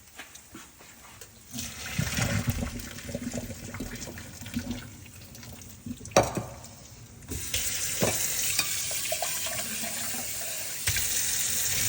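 Water from a pot of cooked rice poured off into a sink, with a few knocks of the pot, then a kitchen tap turned on about seven seconds in and running steadily to rinse the rice under cold water.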